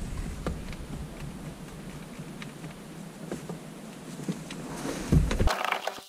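Scattered small clicks and taps as an aluminium shift knob is handled and screwed onto a car's gear lever, over a low steady hum that cuts off about five and a half seconds in, just after a dull thump.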